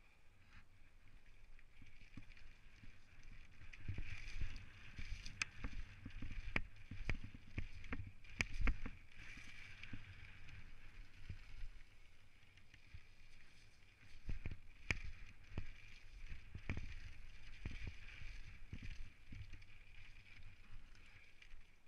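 Specialized Stumpjumper mountain bike rolling over a loose gravel trail: tyres crunching over stones with a low rumble, and many sharp knocks and rattles from the bike over the bumps, busiest in two rough stretches.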